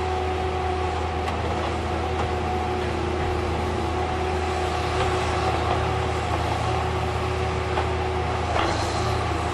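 Heavy diesel machinery of a log loader and slasher saw running steadily with a deep hum, with a few light knocks of logs or steel along the way.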